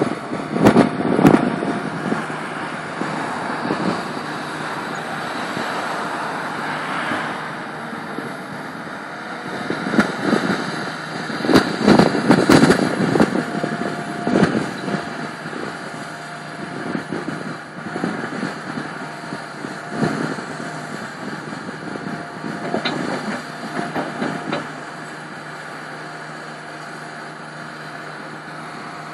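Hitachi Zaxis 350LC tracked excavator running with its diesel engine at a steady note, while the bucket clanks and rattles against rubble and stone in repeated bursts, busiest in the first couple of seconds and through the middle. In the last few seconds only the steady engine is heard.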